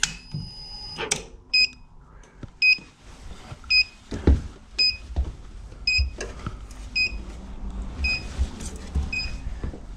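Stairlift control board beeping with power restored: one longer electronic beep at the start, then short high beeps about once a second. Scattered knocks and thumps from handling the carriage and its cover.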